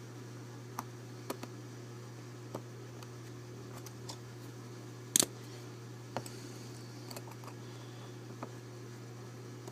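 Small metal clicks and taps from a Dexter deadbolt's lock cylinder being worked on by hand while its detent-held part is unscrewed, with one louder sharp click about five seconds in. A steady low hum runs underneath.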